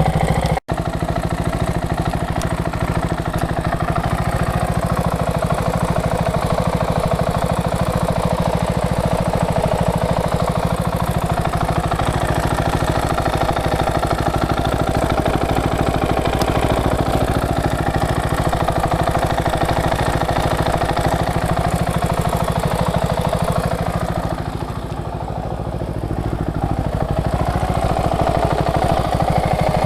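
KTM 690 SM's LC4 single-cylinder engine idling warm, with a steady clattery ticking that the owner suspects comes from the cam chain tensioner.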